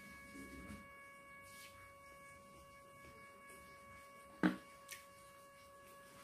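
Quiet eating by hand from a plate, with a sharp click about four and a half seconds in and a smaller one just after. A steady high-pitched tone runs underneath.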